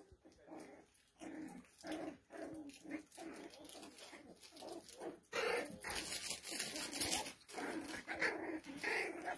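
Poodle puppies vocalizing as they wrestle in play: a rapid string of short, squeaky puppy calls, louder in the second half.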